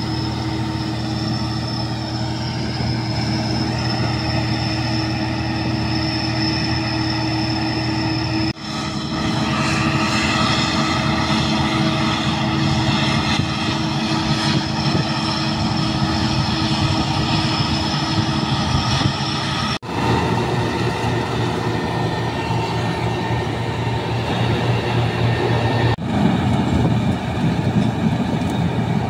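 Palesse GS12 combine harvesters, and near the end a Don-1500B combine, running while cutting and threshing barley: a steady engine and machinery hum. The sound changes abruptly about a third of the way in, about two-thirds in, and again near the end.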